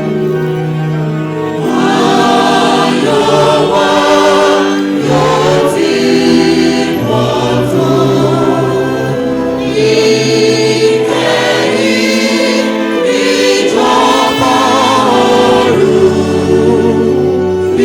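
Church choir singing a hymn in several voices, in long held phrases.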